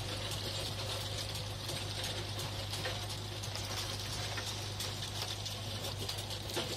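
Joper rotary tiller on a John Deere 5615F tractor working the soil: the tractor engine holds a steady low drone under load while the spinning tiller blades throw clods and stones against the hood in a dense, continuous rattle of small clicks.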